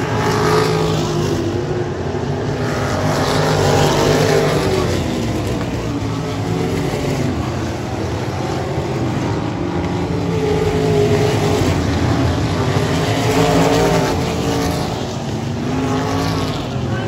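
Several open-wheel dirt-track race car engines racing around the oval. The engine note rises and falls, and the sound swells and eases every few seconds as the pack passes.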